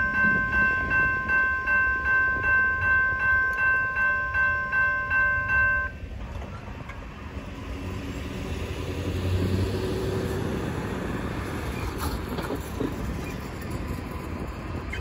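Railroad crossing warning bell ringing about twice a second, then cutting off abruptly about six seconds in as the gate arms start to rise after the train has cleared; a quieter low rumble follows.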